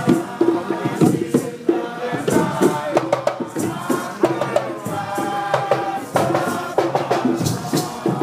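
Nyabinghi chant: a group of voices singing together over Rastafarian Nyabinghi hand drums, whose strokes keep a rhythm under the singing.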